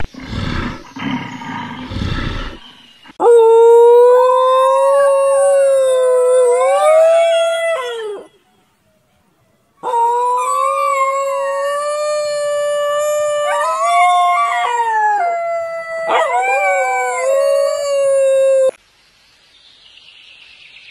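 A rough animal roar for the first couple of seconds, then a grey wolf howling. One long, wavering howl is followed by a pause of about a second and a half, then a longer stretch of howling with a second howl overlapping at times. It cuts off sharply near the end.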